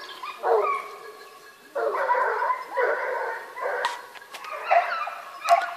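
A pack of hunting hounds giving tongue, baying and yelping in repeated bursts of overlapping cries, the cry of hounds working wild boar. There is a quieter lull about a second in.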